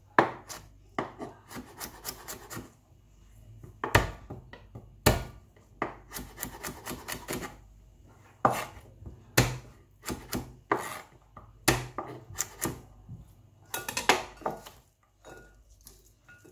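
Chef's knife chopping red onion and garlic cloves on a wooden cutting board: irregular sharp knocks of the blade on the board, some in quick runs, thinning out near the end.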